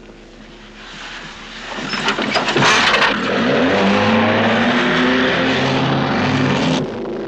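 A motor vehicle engine revving and accelerating, its pitch rising, with a cluster of sharp cracks about two to three seconds in. The sound cuts off suddenly near the end.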